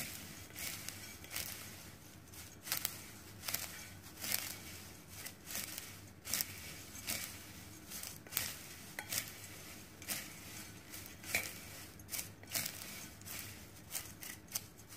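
Chopsticks tossing dry, fried shredded sweet potato, carrot and glass noodles in a bowl: light rustling with small clicks against the bowl, coming irregularly every second or so.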